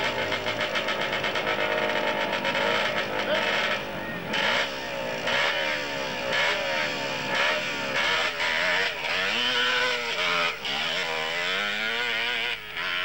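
Enduro motorcycle engine revving hard, its pitch swinging up and down again and again, as the mired bike is pushed up a muddy climb with its rear wheel fighting for grip.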